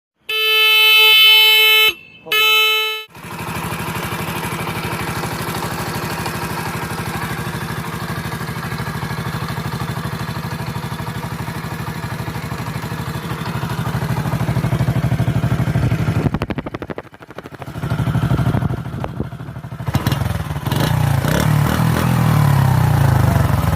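A 2024 Honda CD motorcycle's electric horn sounds twice, a long honk and then a short one. Its single-cylinder four-stroke engine then runs steadily through the silencer with an even exhaust beat. The engine sound drops away briefly past the middle, then rises and falls unevenly as the engine is revved toward the end.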